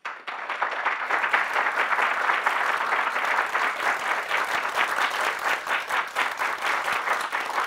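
Audience applauding: many hands clapping in a dense, steady patter that starts suddenly.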